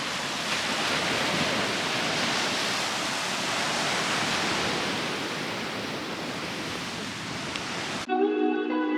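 Steady rushing of ocean surf washing onto a beach. About 8 seconds in it cuts off abruptly and plucked guitar music starts.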